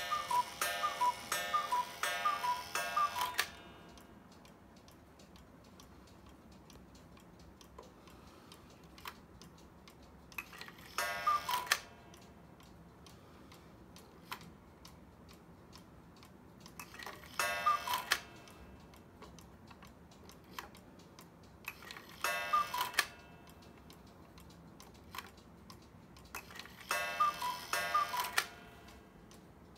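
Hubert Herr double-bird cuckoo clock calling: both birds' two-note cuckoo calls repeat in quick succession for about three seconds, then the clock ticks steadily, with short bursts of cuckoo calls coming back four times, about five seconds apart.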